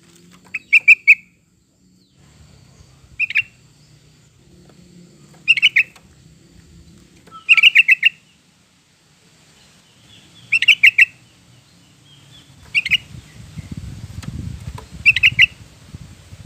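Yellow-vented bulbul (trucukan) singing: short bubbly phrases of a few quick notes, repeated about every two to three seconds, seven times. A low rumble of background noise rises under the song near the end.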